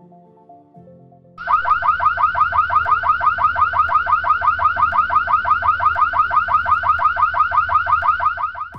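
Active-deterrence security camera's built-in electronic siren sounding: a loud, fast yelp of rapidly repeating falling chirps, about six a second. It starts about a second and a half in and cuts off abruptly near the end. It is the camera's alarm, triggered by a person entering the detection zone.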